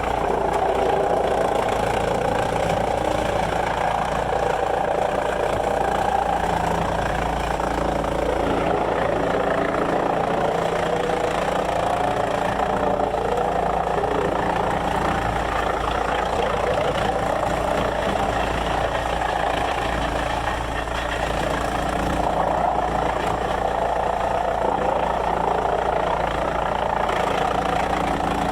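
Sawmill machinery running steadily, a continuous engine-like drone with a low rumble underneath.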